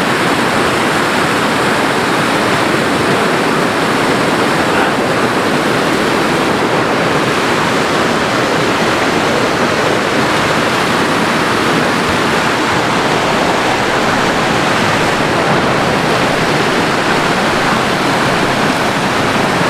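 A rocky stream rushing over a small cascade: loud, steady whitewater.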